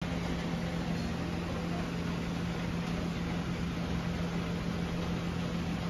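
Steady mechanical hum with one low, even tone and a constant hiss, unchanging throughout.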